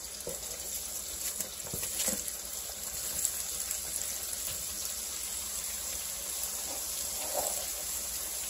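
Bacon frying in a nonstick skillet: a steady sizzle of hot fat, with a few faint knocks about two seconds in as sliced onion is dropped into the pan by hand.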